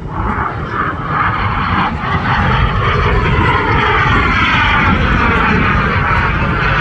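BAC Strikemaster jet trainer's Viper turbojet flying past, growing louder over the first few seconds and then holding loud, with a sweeping tone that falls in pitch as it passes.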